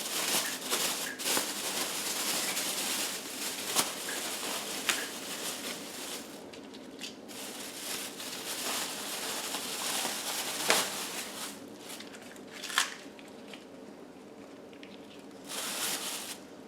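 Lettuce leaves rustling and crinkling as they are handled and laid on a sandwich, with scattered sharp crisp snaps.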